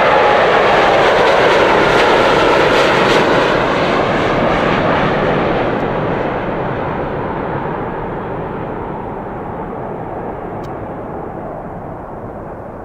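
Boeing 787-9 airliner's turbofan engines at takeoff thrust as it lifts off and climbs away. The jet roar is loudest at first, then fades steadily and loses its high end as the aircraft pulls away.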